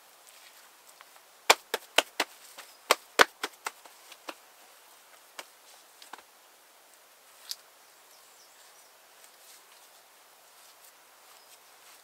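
A quick run of about ten sharp knocks about a second and a half in, packed into roughly three seconds, then a few scattered single knocks, over a faint outdoor hiss.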